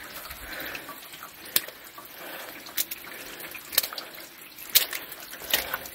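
Rainwater trickling through a rain gutter and downspout, with a few sharp drips. The gutter is flowing with runoff from the rain.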